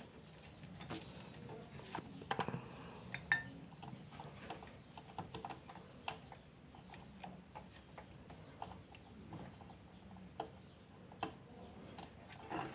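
Faint, scattered clicks and light taps of hands handling PC parts as the CPU cooler and its fan cable are fitted, with a few sharper taps spread through.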